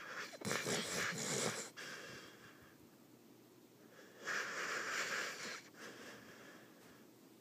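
Hungarian Vizsla snoring in its sleep: two noisy breaths about four seconds apart, the first with a rattle, the second more of a hiss.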